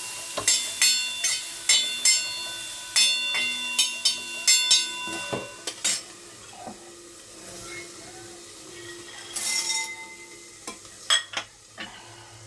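Metal spoon stirring food frying in a metal pan, striking the pan about twice a second with a ringing clank, then easing off to occasional taps over a light sizzle.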